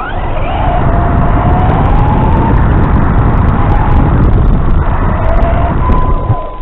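Turnigy Trooper Pro RC car driving, its electric motor whining up and down in pitch over a heavy rumble of wheels and rough ground, heard through the onboard FPV recorder. The whine rises sharply at the start and the noise drops away near the end.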